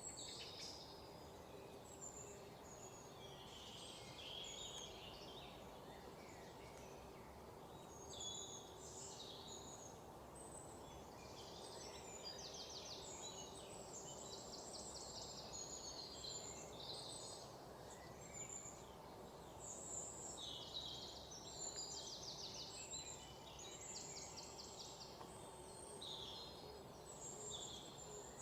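Small birds chirping, with several rapid trills, over a steady low hum.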